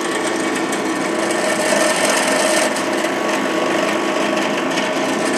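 Power drill running steadily, boring the belly-hook hole into the wooden body of a hand-made fishing plug.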